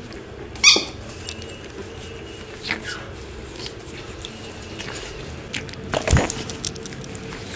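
Shih Tzu puppies playing and play-biting: light scuffling, with a short sharp high squeak less than a second in and a thin falling squeal about three seconds in. A loud thump comes about six seconds in.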